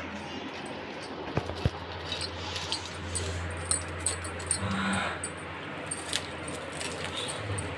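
Fish being scaled and cleaned by hand with a blade: irregular scraping and sharp clicks over a steady low hum, with a brief higher-pitched sound about five seconds in.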